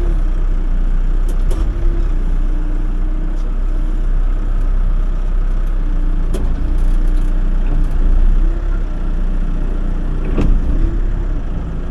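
Backhoe engine running under digging load, its note wavering and dipping as the hydraulics work. Two sharp knocks, about six and ten seconds in.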